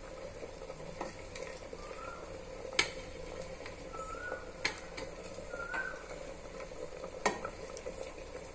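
Steel slotted spoon clinking against an aluminium pressure cooker while scooping cooked tomatoes out of the dal: a few sharp clinks, the loudest about three seconds in.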